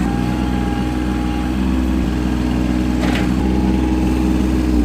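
Compact diesel tractor engine running at a steady speed while driving. Right at the end its note starts to fall.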